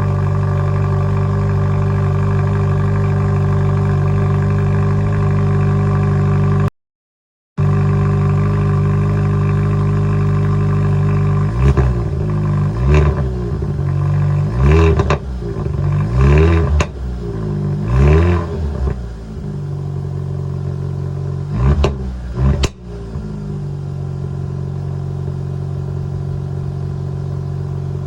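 2020 Kia Forte GT's turbocharged 1.6-litre four-cylinder at a steady fast idle after a cold start. Midway it is blipped about half a dozen times in quick succession, the revs rising and falling, with a few sharp crackles and pops from the exhaust. Near the end it settles to a lower, quieter idle.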